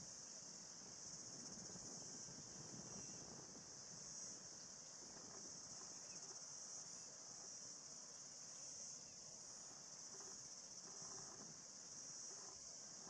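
Faint, steady, high-pitched chirring of insects, pulsing slightly, over a faint low background rumble.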